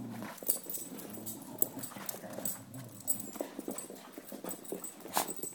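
Small dogs play-fighting: scuffling, with many sharp clicks of claws and paws on the floor and a few short, low dog noises.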